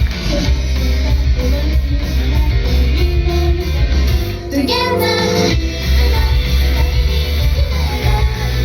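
Rock band playing live: strummed electric guitar and heavy bass under a singing voice, the singing standing out most about halfway through.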